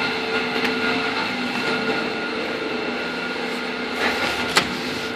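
Steady machinery hum in a meat plant's smokehouse: several constant tones over a low drone, with a single sharp click about four and a half seconds in.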